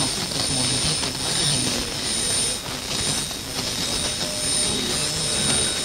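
Loud, steady hiss and static from a radio recorded onto cassette, with faint, indistinct voices beneath it and a thin, steady high whine.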